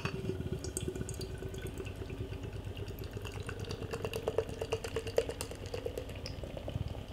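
Beer poured from a tall can into a tilted glass: a steady pour whose faint tone rises slightly as the glass fills, with a soft knock at the very start.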